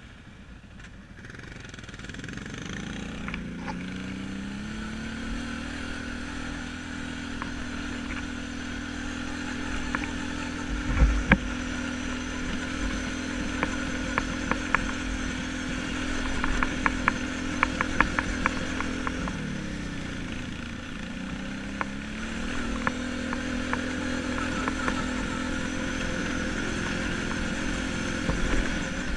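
Quad bike engine running under way, its pitch climbing as it picks up speed in the first few seconds, easing off about twenty seconds in and picking up again. Knocks and clatter come through from about ten to twenty seconds in, the loudest about eleven seconds in.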